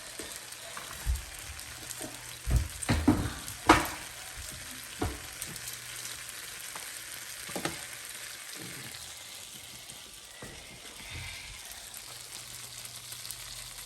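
Butter sizzling in a skillet as seasoned food goes in, a steady frying hiss. Several sharp knocks and clicks against the pan come in the first half, the loudest a little under four seconds in.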